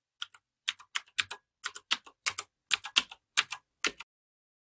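Computer keyboard typing sound effect: a quick run of key clicks, about four a second, that stops about four seconds in.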